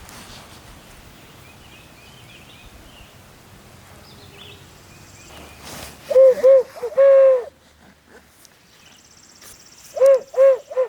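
Barred-owl-style hooting on an owl locator call, blown to make a gobbler shock-gobble: two short hoots and a longer drawn hoot that drops at the end about six seconds in, then three quick short hoots near the end.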